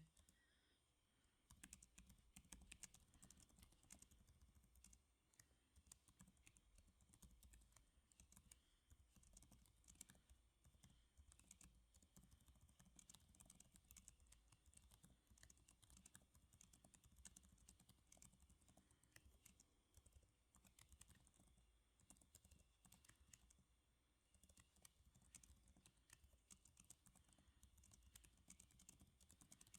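Soft, steady typing on a computer keyboard: a dense, irregular run of key clicks that starts about a second and a half in and slackens briefly near the end.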